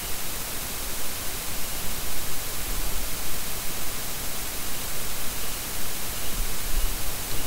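Steady hiss of recording noise, an even static-like wash with no other distinct sound.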